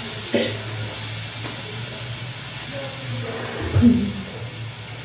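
Chilli paste and sauce frying in hot oil in a pan, sizzling steadily. A person coughs briefly just after the start and again, louder, about four seconds in, from the chilli fumes.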